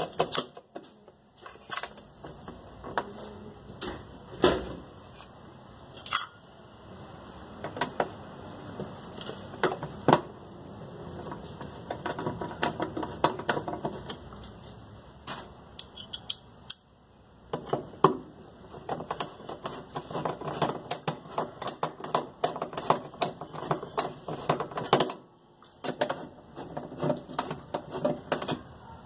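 Hand ratchet wrench clicking in quick runs as bolts are driven into the metal mounting plate of a washing machine's drive mechanism, with separate sharp knocks and clinks of metal tools and parts in between.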